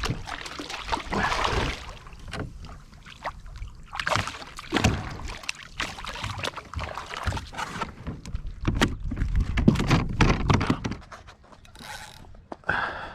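Water sloshing and splashing with a run of knocks and clatter on a kayak, busiest and loudest a little past the middle.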